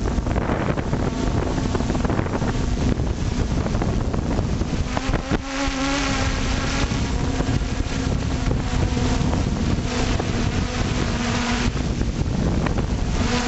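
Multirotor drone's motors and propellers buzzing steadily, picked up by the camera mounted on it, with heavy wind rushing over the microphone.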